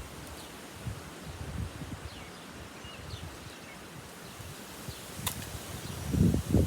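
Quiet outdoor ambience: low gusty rumble with a few faint, short bird chirps and a single sharp click about five seconds in. Near the end, loud irregular low rumbling comes in, like wind buffeting the microphone.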